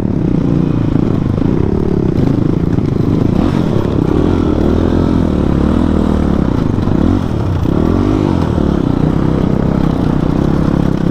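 Motorcycle engine running under load on a rough off-road track, its pitch rising and falling with the throttle and dipping then climbing again about seven to eight seconds in.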